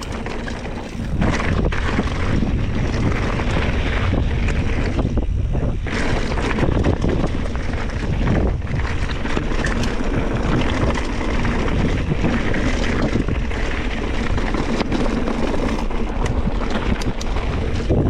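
Wind rushing over an action camera's microphone as a mountain bike rides down a dirt trail, with the bike rattling and knocking over bumps. The rush grows louder about a second in as the bike picks up speed.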